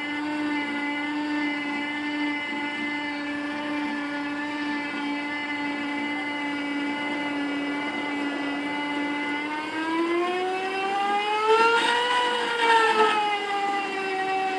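The machinery of an overhead canopy cable ride whining steadily at one pitch. About ten seconds in the whine rises in pitch, peaks, then eases back down, with a few faint clicks near the top.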